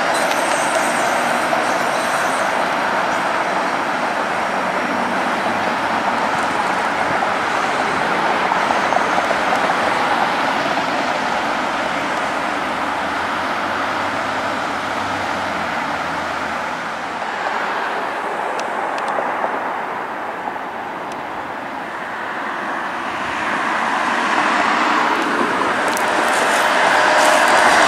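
Street traffic with a Flexity Outlook streetcar rolling away down the street. The noise eases to a lull a little past halfway, then builds again near the end as cars and another streetcar approach.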